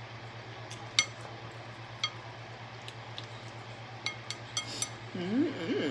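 Hard mussel shells and dishware clinking as seafood is handled at the table: about six sharp, scattered taps, two in the first half and a quick cluster a little past the middle, over a steady low hum.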